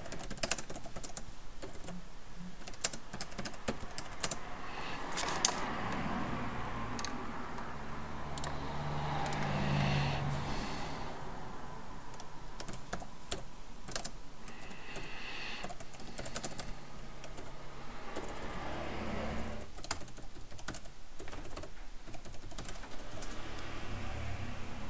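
Typing on a laptop keyboard: irregular runs of key clicks. A low hum swells and fades about midway through.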